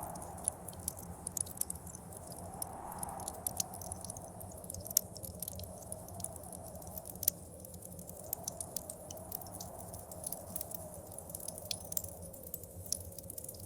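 Wood fire crackling in a fireplace, with irregular sharp pops, over blizzard wind outside that swells and fades in slow gusts.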